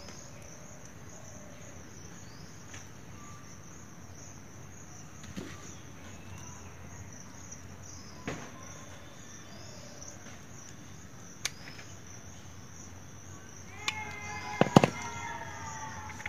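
Crickets chirring steadily, with a few sharp clicks of stiff steel wire being bent with pliers, the loudest pair near the end. Near the end a siren starts up, its tone slowly falling in pitch.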